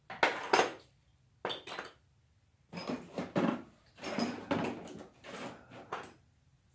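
Metal hand tools clinking and knocking against each other and the table as they are set down and picked up, in several short bursts of clatter with quiet gaps between.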